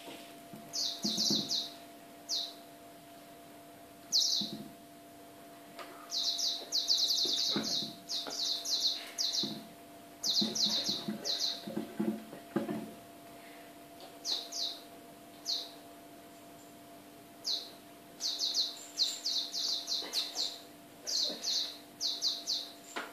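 Toy mouse giving runs of short, high, bird-like chirps, several a second, as it is batted about by the cats, with soft knocks as it lands on the tiled floor.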